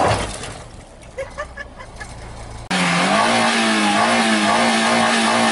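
Fiat Marea Weekend's 16-valve petrol engine being revved hard. The revs fall away at the start to a quiet idle, then about two and a half seconds in the engine is suddenly at high revs again and is held there, steady with a slight waver.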